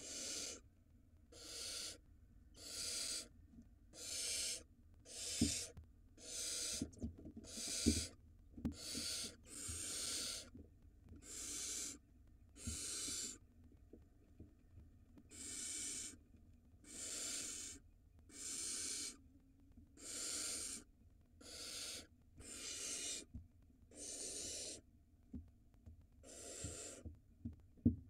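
Barn owl begging calls: long rasping hisses, the 'snoring' of nestlings asking for food, repeated about every second and a half. A few sharp knocks come between them, the loudest about five and eight seconds in and near the end.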